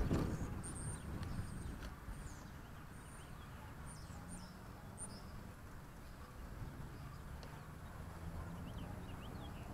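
Birds chirping in short, high calls, a few at a time through the first half and again near the end, over a steady low rumble. A single knock sounds right at the start.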